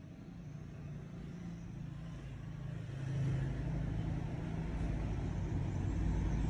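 Low motor rumble with a steady hum, growing louder and stepping up about three seconds in.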